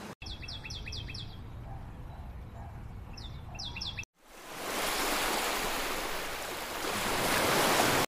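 A small songbird gives two quick runs of short, falling chirps. Then the sound cuts off at about four seconds and gives way to a louder, steady rushing of lake water lapping on the shore with wind, which swells toward the end.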